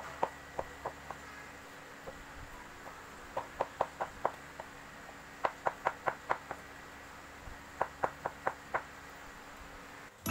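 Kitchen knife slicing a block of tempeh on a wooden cutting board: sharp knocks of the blade striking the board, about five a second, in four quick runs.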